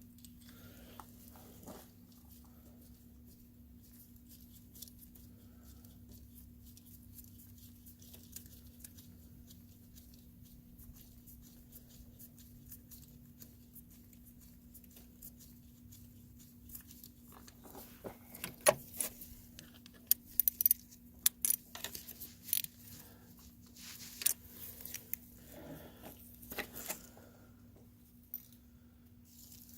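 A faint steady hum, and a little past halfway a run of sharp clicks and rattles from small hard objects being handled.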